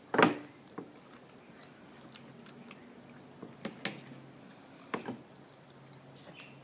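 A person biting into and chewing a piece of grilled chicken breast: a sharp click as the bite is taken, then a few short, quiet mouth and chewing clicks.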